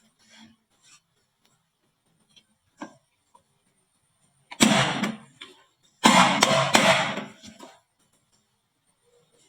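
Marbles clattering down a wooden marble run: a few light clicks, then a short burst of clatter about halfway through and a longer, denser run of rattling strikes a second later that dies away.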